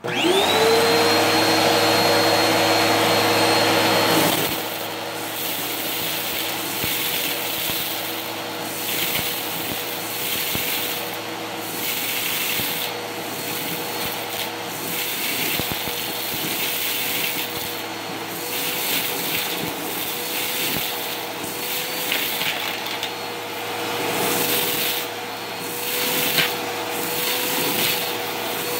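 Vacuum cleaner switched on, its motor whine rising quickly to full speed and then running steadily. About four seconds in it drops in level, and from then on it swells and fades as the cleaner is worked over the floor.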